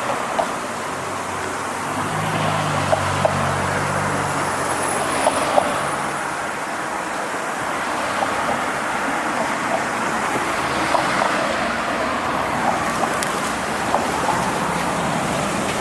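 Steady rushing noise of road traffic, with a vehicle's engine hum passing a few seconds in. Footsteps of shoes click lightly now and then.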